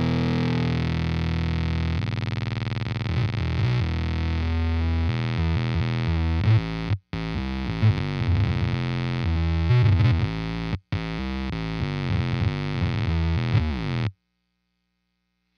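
Electric guitar played through an EarthQuaker Devices Bit Commander analog octave synth pedal, giving a thick, buzzy synth tone with strong sub-octave lows. One note rings first, then a quicker riff of changing notes follows, with two brief gaps. It stops abruptly near the end.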